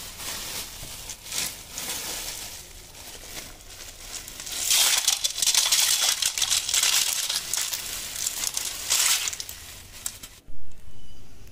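Thin plastic bag crinkling as it is handled and opened, then a bagful of live snails poured into a steel bowl of water, shells rattling and water splashing, loudest for about four seconds in the middle. The noise stops abruptly near the end, followed by one brief loud sound.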